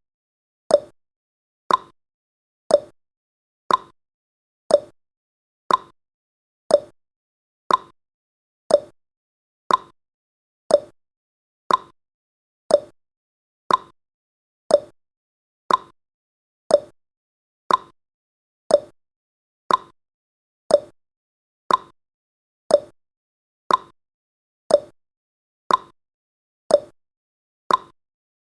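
Countdown timer's clock-tick sound effect, one short sharp tick each second, evenly spaced.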